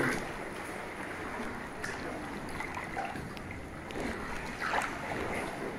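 Kayak paddles dipping and splashing in calm water, with water lapping around the hulls, and a louder splash or two about four and a half seconds in.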